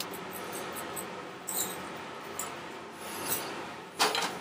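A raw pheasant being handled and turned on a wooden cutting board while it is salted: a few short, faint rustles and squeaks, then a louder brief rustle just after four seconds in.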